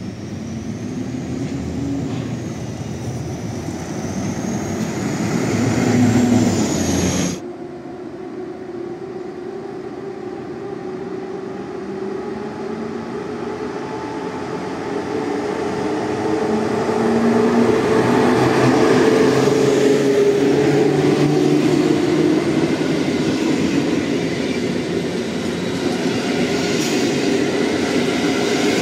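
First about seven seconds of street traffic noise that swells before a sudden cut. Then a PKP Intercity passenger train, hauled by an electric locomotive, rolls through the station, its wheels and running gear on the rails growing louder as the coaches pass close by.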